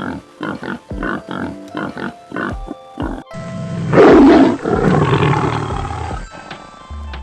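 A pig grunting in a quick run of short grunts, then, after a cut about three seconds in, a big cat's loud roar lasting about two seconds, over background music.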